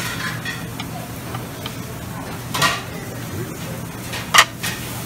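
Serving tongs clacking against a plate and sushi trays: two short clatters, the louder one near the end, over a steady low hum.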